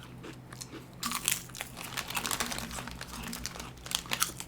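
Crunchy potato crackers crackling as they are bitten and chewed, with crinkling among the crunches: irregular crisp crackles starting about a second in.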